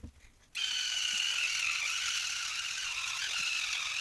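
Battery-powered electric spin toothbrush switched on about half a second in, then running steadily.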